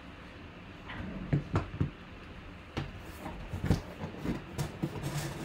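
Cardboard box being picked up and handled by hand: a string of irregular knocks and rubbing sounds that starts about a second in, the loudest about two-thirds of the way through.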